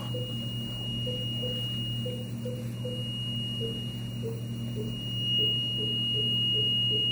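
Pulse oximeter beeping with the infant's pulse, about two short beeps a second, the beep pitch stepping down a little about halfway through as oxygen saturation falls. A steady high-pitched tone and a low equipment hum run underneath.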